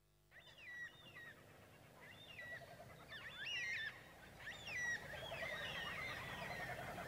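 Birds chirping and singing: many short, sweeping whistled phrases repeating one after another, fading in over the first few seconds and growing louder.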